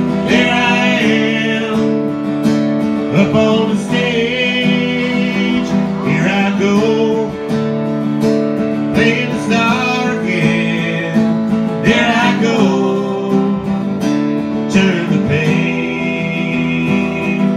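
Live music in an instrumental passage: acoustic guitar strummed steadily, with a held, wavering high melody line coming in every few seconds over the chords.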